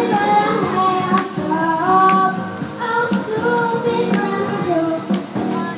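A young girl singing a song into a microphone, amplified, over instrumental accompaniment with a steady beat about once a second.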